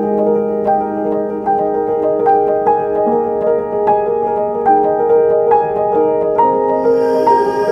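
Background instrumental music: a gentle track with evenly paced notes, about two or three a second, over held chords.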